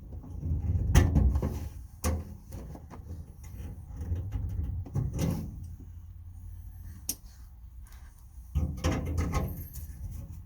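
Metal tool box drawers being handled: sliding, scraping and clanking shut, with several sharp knocks and a longer scrape near the end.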